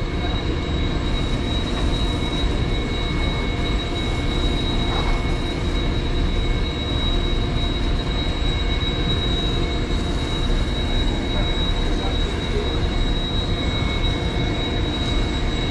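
A steady low mechanical rumble with a constant high-pitched whine over it, unchanging throughout.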